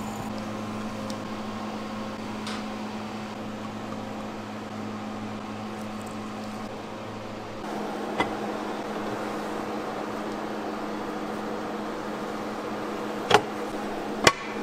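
Factory machinery running with a steady hum. The hum's low part changes slightly about eight seconds in, and three short sharp clicks or knocks come later, the last two close together near the end.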